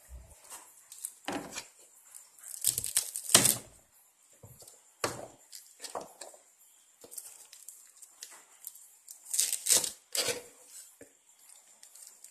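Fresh leafy herbs being handled and cut with a kitchen knife on a plastic cutting board: scattered knife knocks on the board mixed with rustling and tearing of the leaves, in irregular bursts rather than a steady chopping rhythm.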